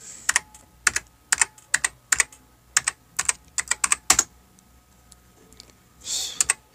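Computer keyboard typing: irregular clicking keystrokes of a search being entered, stopping for a moment after about four seconds. A brief soft hiss comes near the end.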